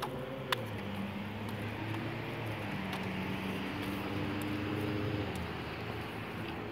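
Motor vehicle on the road passing by: an engine hum with tyre noise that swells and then fades. A single sharp click sounds about half a second in.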